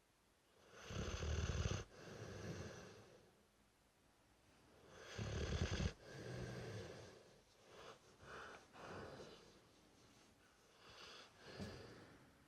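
Dorset Old Tyme Bulldog snoring in its sleep. Two loud snores each cut off sharply and are followed by a softer one, then come several shorter, lighter snores and one more near the end.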